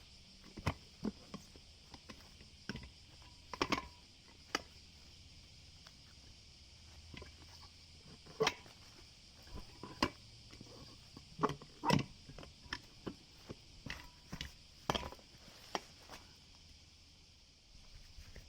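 Irregular clicks, clinks and knocks of hand tools and parts being handled during work on a scooter's wheel and tyre, a few of them sharper and louder, over a faint steady high hiss.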